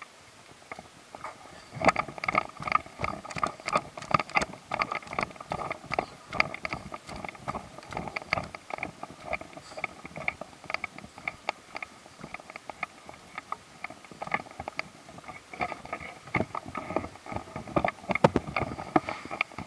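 Walking footsteps, about two a second, mixed with knocks and rubbing from the handheld camera as it jostles.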